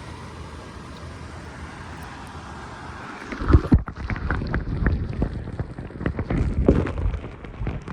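Steady rush of flowing stream water, then from about three seconds in a run of irregular low thumps and knocks, louder than the water, that go on to the end.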